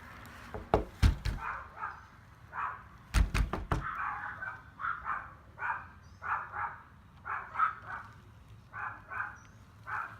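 A door banging open with a few loud thuds, twice in the first four seconds, then small Yorkshire terriers barking over and over in short, high yaps that come in twos and threes, alarmed at someone coming into the house.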